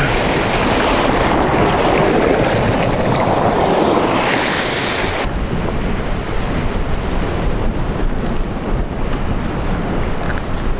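Surf washing against the jetty with wind buffeting the microphone: a loud, steady rush. The high hiss drops away suddenly about halfway through.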